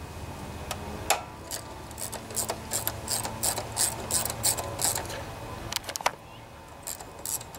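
Ratchet wrench clicking in runs as the bracket bolts are loosened, a few clicks a second, stopping about five seconds in and starting again near the end.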